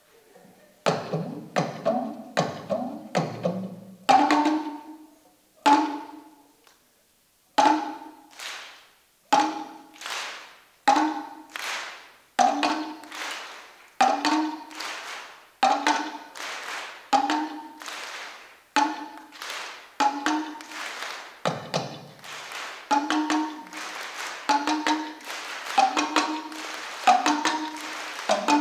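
Tama (West African talking drum) played solo: sharp strikes with ringing pitched tones, the pitch changing from stroke to stroke, with some low notes. A quick flurry comes in the first few seconds, then a steady beat of about one stroke a second that grows busier near the end.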